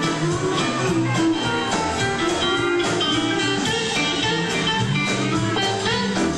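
Live country band playing an instrumental passage, with guitar prominent over the band.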